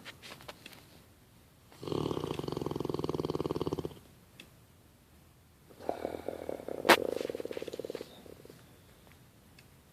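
Snoring: two long snores about four seconds apart, each about two seconds of fast fluttering pulses, with a sharp click during the second.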